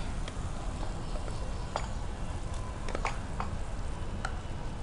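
Scattered light taps and scrapes of a spatula and nonstick pan as cooked food is tipped out of the pan into a terracotta serving bowl, over a steady low hum.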